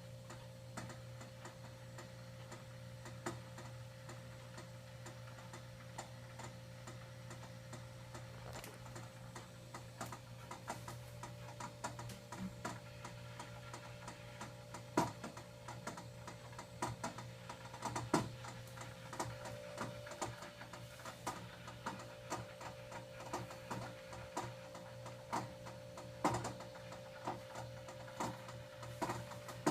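Arrowhead water cooler's cooling unit running with a steady low hum and a steady higher tone, with irregular ticking and clicking that grows busier after several seconds. This is the loud noise of a cooler only a week old that is malfunctioning.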